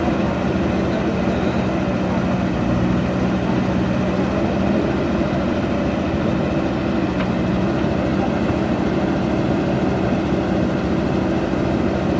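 Diesel engine of a JCB backhoe loader running steadily at a constant speed.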